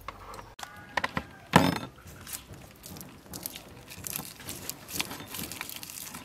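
Close-up handling sounds of lemongrass stalks being pushed into a raw snakehead fish's mouth: irregular rustling, crackling and squishing, with a louder knock about one and a half seconds in.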